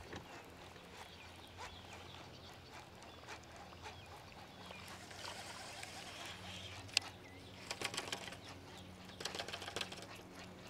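Quiet retrieve on a baitcasting reel: a faint steady hum under scattered light clicks and ticks, with one sharp click about seven seconds in and bunches of quick ticks near the end.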